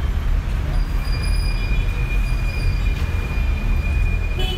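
Dense city traffic at an intersection: a steady low rumble of idling and creeping car engines. A long, steady, high-pitched squeal comes in about a second in and holds for several seconds.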